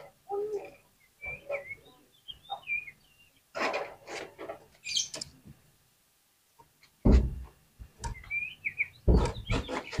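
Oriental magpie-robin (kacer) singing in a cage: bursts of varied chirps and short gliding whistles separated by brief gaps, with a pause of about a second just past the middle and loud, rough bursts near the end.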